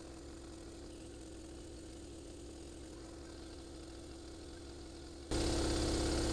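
Husky upright air compressor running steadily as it pumps up its tank: a low hum with one steady tone. About five seconds in it suddenly becomes much louder.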